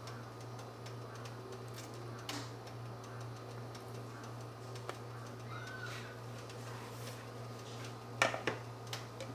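Chopped onion frying in hot oil in a pan, a faint steady sizzle with scattered crackling ticks over a steady low hum. A few sharp knocks sound together about eight seconds in.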